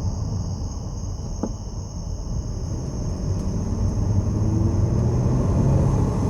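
Low rumble of a 2006 Lincoln Zephyr on the move, with a steady high-pitched whine over it and a single click about one and a half seconds in.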